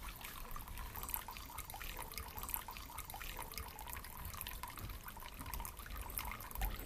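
A thin stream of water from a bamboo spout trickling steadily into a stone tsukubai basin, with many small irregular splashes.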